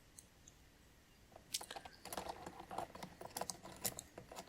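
Hard plastic toy parts clicking and rattling as a Transformers figure and its snap-together rifles are handled, a quick irregular run of small clicks starting about a second and a half in.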